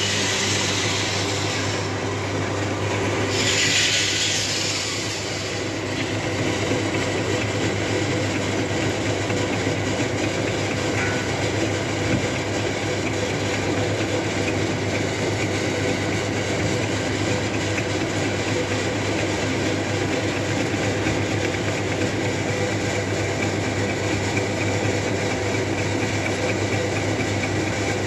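Metal lathe running with a steel roller turning in its chuck, giving a steady motor-and-gear hum. A higher hiss rises over it twice in the first five seconds.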